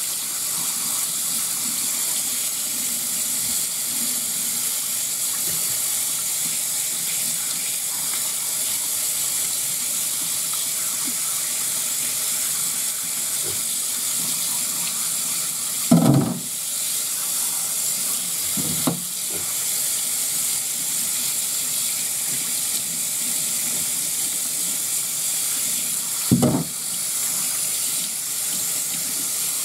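Kitchen tap running steadily into a sink as a gutted trout is rinsed out inside. A few short knocks sound against the flow about halfway through and again near the end.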